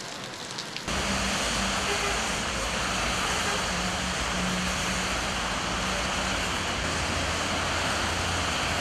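Rain pattering with scattered drop clicks, then about a second in a sudden switch to a louder, steady rushing noise of heavy rain and road traffic with a low rumble.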